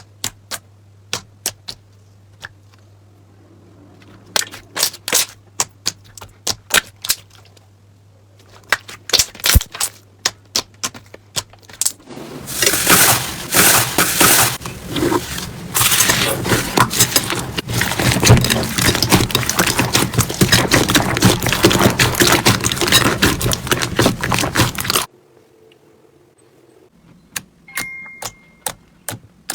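Slime being pressed and squished by hand: scattered sharp clicks and pops, then about twelve seconds in a dense, loud crackling that lasts about thirteen seconds and stops suddenly, followed by a few more clicks.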